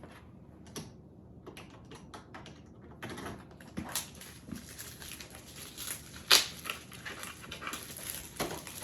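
Irregular light clicks and taps of small plastic toy pieces being handled, sparse at first and busier after about three seconds, with one louder knock about six seconds in.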